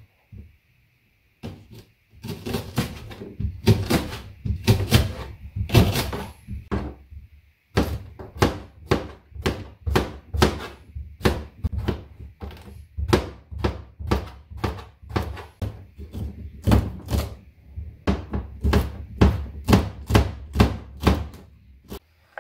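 Kitchen knife chopping green onions on a cutting board: a steady run of knife thunks about two a second, broken by short pauses.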